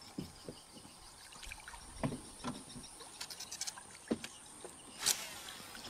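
Quiet water and a few scattered knocks and clicks on a small fishing boat while an angler works a baitcasting rod and reel, with one sharper, louder noise about five seconds in.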